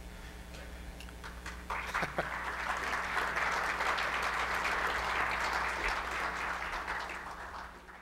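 Audience applauding, starting about two seconds in and fading away near the end, over a steady low hum.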